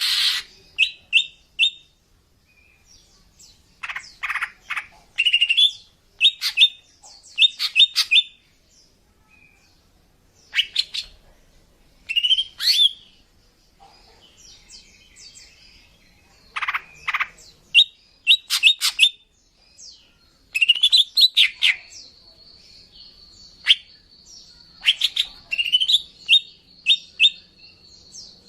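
Female greater green leafbird (cucak ijo) calling: short bursts of quick high chirps and upward-sweeping notes, repeated every second or two, with a thin steady whistle held for several seconds near the end. This is a lure call used to draw in males.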